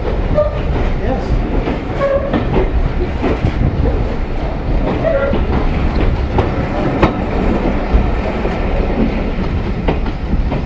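A train running along the track: a steady low rumble with irregular clicks and knocks of wheels going over the rails.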